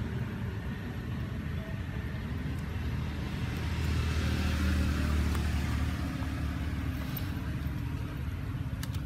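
A motor vehicle's engine running close by with a steady low hum. It grows louder in the middle, with added road hiss, as it passes, then fades back.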